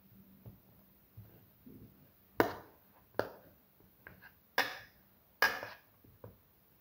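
A flat perforated steel masher pressing boiled potatoes in a bowl. It knocks sharply against the bowl four times, about a second apart from roughly two seconds in, with softer dull knocks between.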